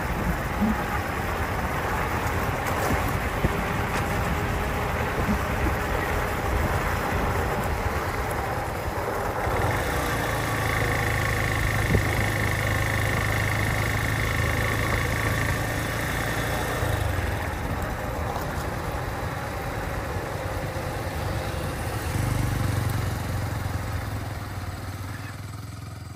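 Steady running noise of a vehicle on the move: engine hum mixed with road and wind noise. A steady high tone joins for several seconds in the middle.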